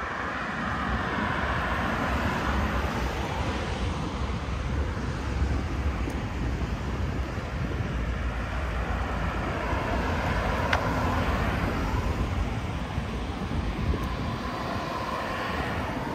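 Road traffic on a city street: a steady wash of cars passing, with several swelling louder as they go by.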